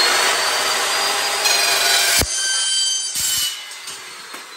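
Chop saw cutting through a steel framing tube: the saw starts suddenly at full cut, runs loud for about three and a half seconds, then drops off as the blade spins down with a falling whine.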